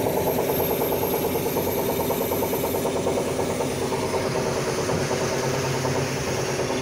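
Atlas 330.1 crane's hydraulic system running under load as the crane slews, a steady drone with a rough, abnormal metallic sound that the operator traces to the hydraulic pump. A lower hum grows stronger about five seconds in.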